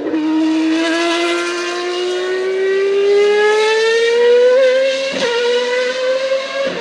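1991 Ferrari 643 Formula 1 car's V12 at full throttle, exhaling through equal-length headers joined by short pipes: a high wail that climbs steadily in pitch as the revs build, with a brief break about five seconds in before it climbs on.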